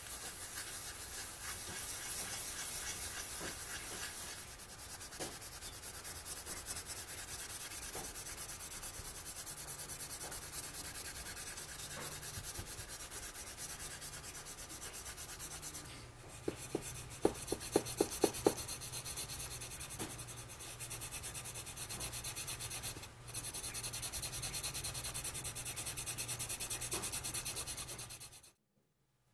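A cloth pad rubbing finish into a small walnut lid in quick back-and-forth strokes, a steady dry scratchy rubbing with a couple of short pauses. A little past halfway there is a quick run of about seven sharp ticks.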